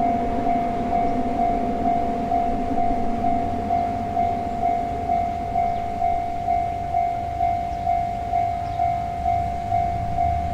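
Japanese level-crossing warning bell ringing its repeated 'kan-kan' tone, about two strikes a second, with a low rumble building near the end.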